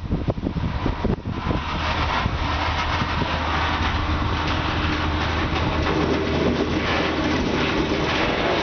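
A diesel freight locomotive's engine running as it approaches and passes close by, followed by the wheels of flat wagons loaded with steel coils rolling past on the track.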